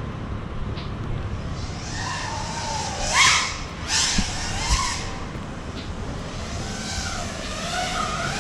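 A 5-inch FPV quadcopter with Emax 2207 2400Kv motors and three-blade props whining in flight, its pitch rising and falling with the throttle. It gets louder, with sharp swooshes, about three to five seconds in.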